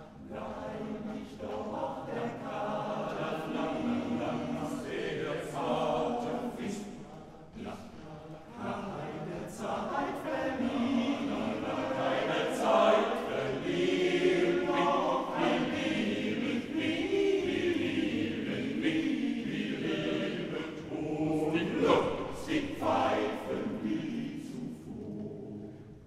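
Male voice choir singing a cappella in German, with crisp, clearly articulated consonants; it swells louder through the middle and tapers off near the end.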